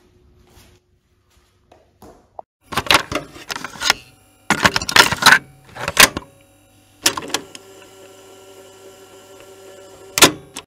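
Clusters of loud clattering knocks and thumps, with a steady hum underneath from about halfway through.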